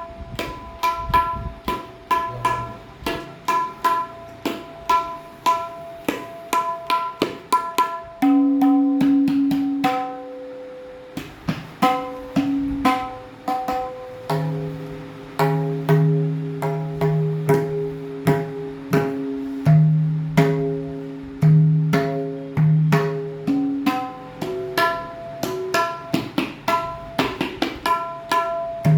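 Tabla being played: a steady stream of sharp strokes that ring at clear pitches. Deeper, longer-ringing notes come in from about eight seconds in.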